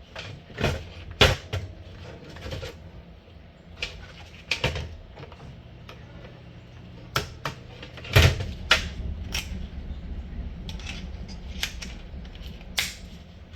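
Plastic parts of a Timex alarm clock being handled and pulled apart: irregular clicks, knocks and clatters, the loudest about a second in and about eight seconds in.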